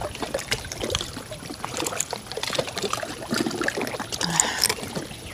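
Light water trickling and lapping, with many scattered small clicks and taps.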